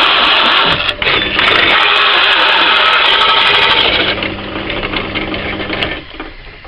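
Hole saw in a pillar drill cutting through softwood: a loud, steady cutting noise that stops about four seconds in as the cut finishes. The drill's motor then runs on with a steady hum before the sound drops near the end.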